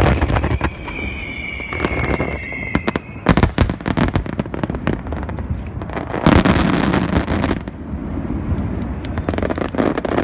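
Aerial fireworks going off: a falling whistle in the first few seconds, then a rapid run of sharp cracks and bangs, with a loud sustained crackling burst a little past the middle.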